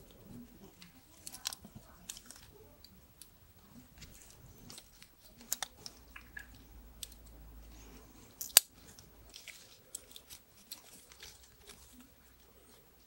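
Small knife cutting and scraping into a ficus trunk's bark and wood, carving a groove for an inlay graft: scattered crunchy clicks and scrapes, with one sharp click about eight and a half seconds in.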